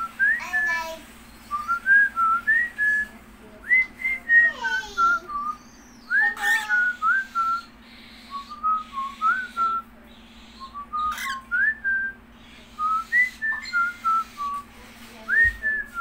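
Cockatiel whistling: phrases of short, clear chirpy notes that slur up and down, with brief pauses between phrases.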